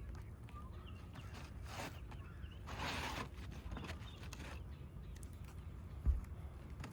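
Handwork on an asphalt shingle roof: shingles rustling and scraping, twice in the first half, and one dull thump a little after 6 s, with a steady low wind rumble on the microphone.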